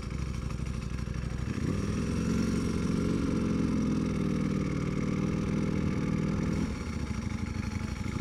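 Ducati Panigale V4R's 998 cc V4 engine running under way; it pulls harder from about a second and a half in and eases off again near the end.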